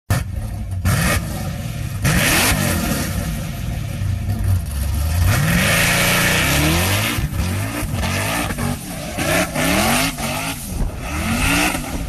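A motor vehicle's engine revving hard as it accelerates, its pitch climbing steeply several times.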